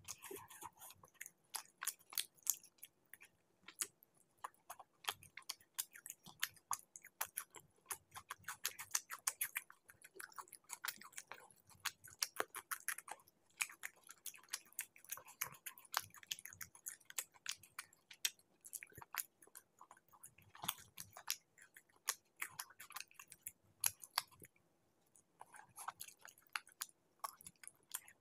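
Close-miked chewing of chicken curry and laccha paratha: a steady stream of wet mouth clicks and smacks, broken by a couple of short pauses.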